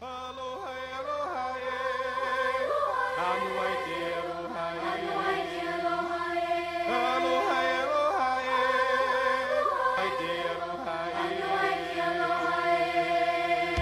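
Music with sung, chant-like voices holding and bending long notes over a sustained accompaniment, beginning suddenly at the start.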